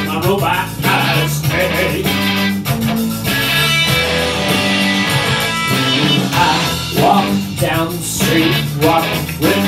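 Rock song played on an amplified Stratocaster-style electric guitar with a man singing. The voice drops out for a few seconds in the middle while the guitar chords ring on, then comes back near the end.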